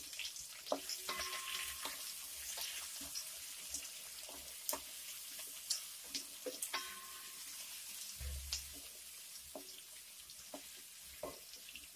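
Sliced onions frying in hot oil in a metal kadhai, a faint steady sizzle, with scattered short taps and scrapes of a wooden spatula stirring them against the pan.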